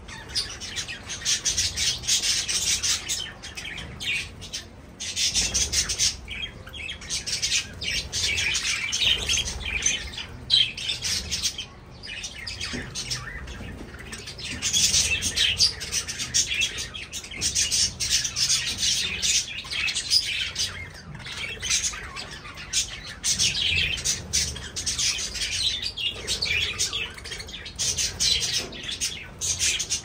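A flock of budgerigars chattering as they feed: a dense tangle of high chirps and squawks that swells and dips in waves, with brief lulls.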